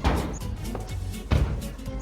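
Background music with a steady beat, with two heavier hits, one at the start and one about a second and a half in.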